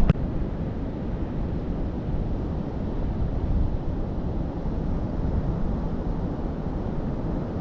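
Steady wind noise on the microphone mixed with the wash of ocean surf on a beach. It is an even, low noise with no distinct events.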